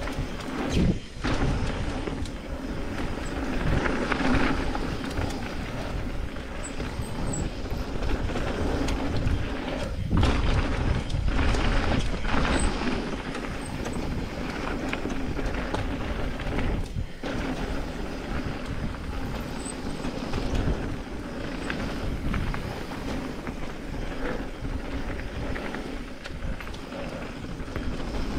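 Mountain bike riding down a dirt flow trail: a steady rumble of tyres on dirt and wind, with knocks and rattles from the bike. The noise cuts out briefly about a second in, about ten seconds in and near seventeen seconds.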